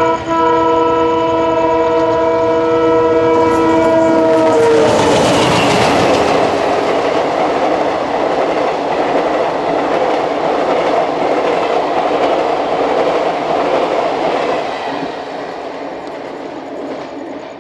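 A fast train running through at speed without stopping sounds its horn: a steady chord of several notes held for about five seconds, whose pitch drops as the locomotive goes by. Then comes the loud rush and wheel clatter of its coaches passing close by, fading toward the end.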